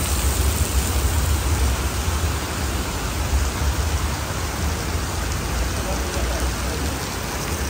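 Heavy rain pouring onto a paved street: a steady hiss over a low rumble, which eases a little after about two seconds.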